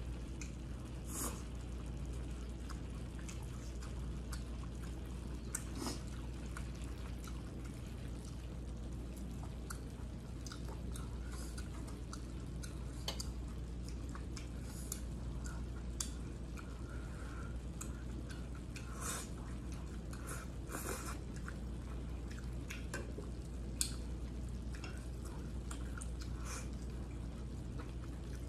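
Eating sounds: wet chewing and slurping of glass noodles, with scattered short clicks of chopsticks on a plate, over a steady low hum.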